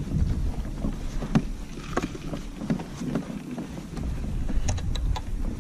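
Low wind rumble on the microphone aboard a fishing kayak on the water, with several scattered light clicks and taps.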